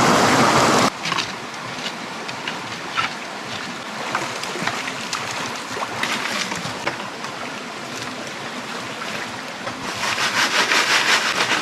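Brook water running and splashing. A loud rush of water cuts off sharply about a second in, small trickles and clicks follow, and a louder rhythmic swishing of water comes near the end.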